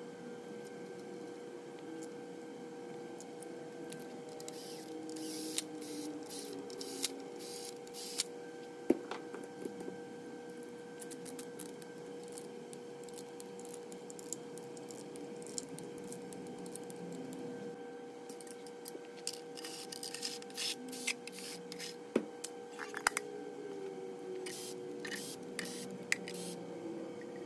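Ratcheting wrench clicking in short runs as the oil pump bolts on an LS engine block are snugged down, with a few sharp metal knocks, over a steady faint hum.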